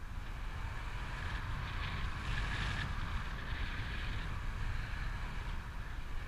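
Wind rushing over the camera's microphone in paragliding flight: a steady low rumble with a hiss that grows brighter for about a second, two seconds in.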